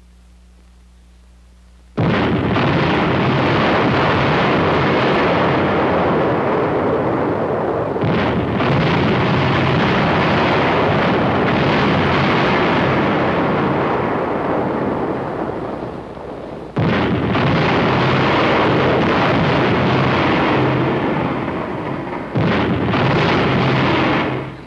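Sustained din of artillery shell explosions on an old film soundtrack, starting abruptly about two seconds in, then breaking off and slamming back in suddenly three more times.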